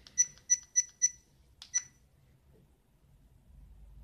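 EKEN H9R action camera giving short electronic key beeps as its settings menu is stepped through: four quick beeps about a third of a second apart, then a click and one more beep about a second later.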